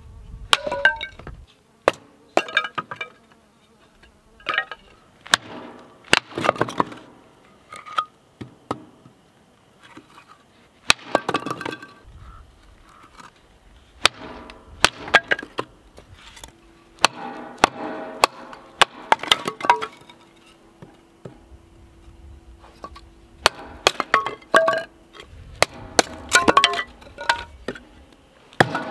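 Batoning kindling: a fixed-blade knife driven down through a short length of dry firewood by knocks of a wooden baton on its spine. Repeated sharp knocks in irregular clusters, with the wood cracking as it splits and thin split sticks clinking as they fall onto each other.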